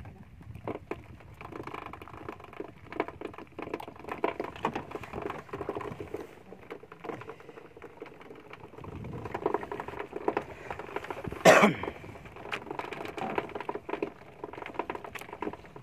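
A person coughs once, sharply and loudly, about eleven and a half seconds in, over a run of irregular small knocks and clicks.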